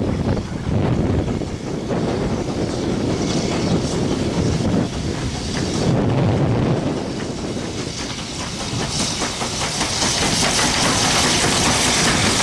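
Southern Railway S15 class No. 847 steam locomotive approaching and passing with its Pullman train, working steam. Wind buffets the microphone at first, then the hiss of steam and the clatter of wheels on the rails grow louder from about nine seconds in as the engine draws level.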